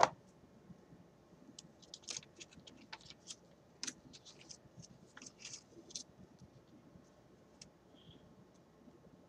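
Scattered faint clicks and rustles of small packaging and a paper instruction leaflet being handled, with one sharper click right at the start.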